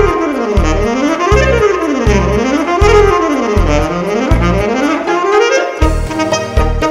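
Alto saxophone playing fast runs that sweep up and down the scale again and again, over a backing track of electric bass and drums. About a second before the end the backing shifts into a new section.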